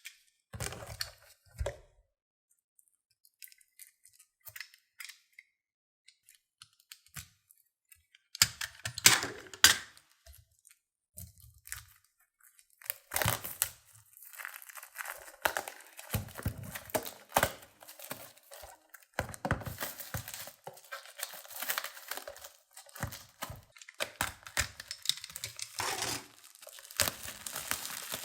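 Plastic wrapping being torn and crinkled off a 4K Blu-ray steelbook case. Scattered clicks and small rustles come first, then continuous crackling from about halfway on.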